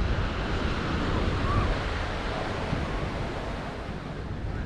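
Sea waves breaking and washing up the beach: a swell of surf hiss that builds over the first second or two and then slowly eases, with wind rumbling on the microphone underneath.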